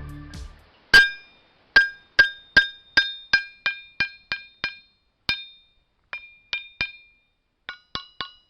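Ringing rocks being struck, each blow giving a clear, bell-like ring that dies away quickly. A quick run of a dozen strikes at one pitch is followed by a few slower strikes on a higher note, then several quick strikes on different notes near the end.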